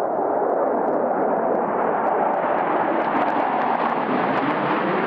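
Jet noise from a formation of F-16 fighter jets flying past, a loud, steady rush that grows harsher and higher-pitched as the jets close in.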